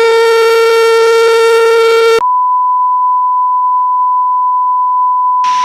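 Electronic emergency-alert tones: a loud, steady buzzy tone cuts off about two seconds in and is replaced by a single pure, higher steady tone like a long beep. A hiss of static joins the tone near the end.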